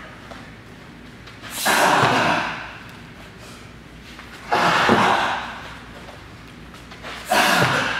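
Three loud, rushing bursts about three seconds apart, each starting sharply and fading over about a second: the sounds of a partner-assisted backflip drill, an athlete launched off a squatting partner's cupped hands on each rep.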